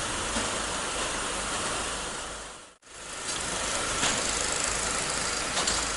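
Steady mechanical running noise of a tyre belt conveyor line, with a hiss over it. About three seconds in it fades out to silence and straight back in.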